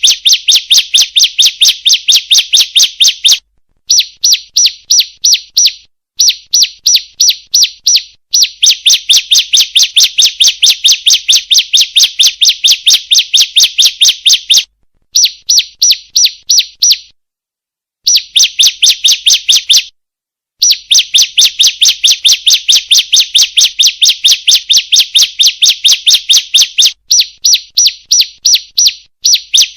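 Female bar-winged prinia (ciblek) calling: a loud, fast, even series of sharp chips, about six a second, in runs broken by short pauses.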